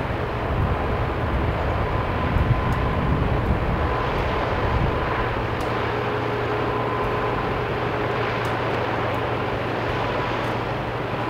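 Steady distant mechanical rumble with a faint steady hum over it.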